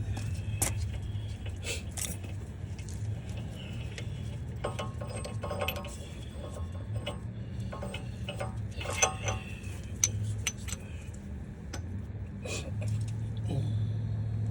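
Metal hand tools and sockets clinking and tapping against metal parts during wheel-hub work, with scattered sharp clicks, over a steady low hum.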